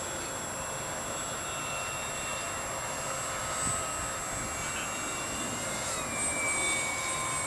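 Electric motor and propeller of a Hobbico Electristar RC trainer plane in flight, a steady whine with thin high tones over a hiss. About six seconds in, the pitch shifts slightly lower.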